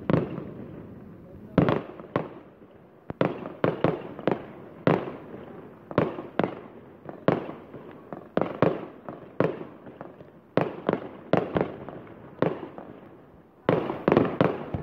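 Professional fireworks display: aerial shells bursting in quick succession, a sharp bang every half second to second, each trailing off in a rolling echo. A cluster of louder bursts comes near the end.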